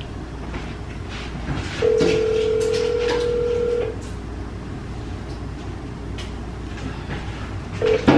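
A phone sounding one steady electronic tone held for about two seconds, amid scattered light clicks and taps.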